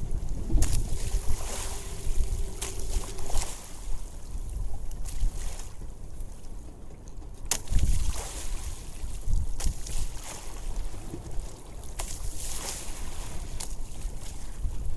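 Wind buffeting the microphone and choppy sea slapping against a small open boat's hull, with a few sharp knocks and splashes. A faint steady hum runs for the first few seconds.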